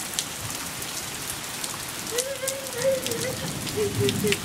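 Steady rain falling on lawn and pavement, a constant hiss with many sharp drop hits. From about halfway through, a high, wavering voice holds a long drawn-out sound over the rain for about two seconds.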